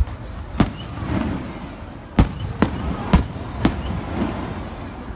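Aerial firework shells bursting overhead: about six sharp bangs at irregular gaps, with crowd noise between them.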